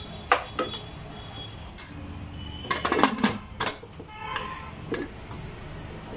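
Metal spoon clinking against an aluminium pressure cooker as the rice mixture is given a light stir, then the cooker's lid clanking as it is set on and closed, with a cluster of sharp metal clinks about three seconds in.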